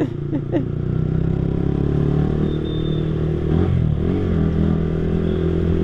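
Yamaha R15 V3's 155 cc single-cylinder engine running through an aftermarket Akrapovic-style exhaust while the bike is ridden, its note steady with a brief dip and recovery in pitch about four seconds in.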